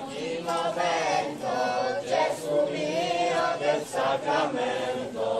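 A crowd of people singing a Catholic hymn together as they walk in procession.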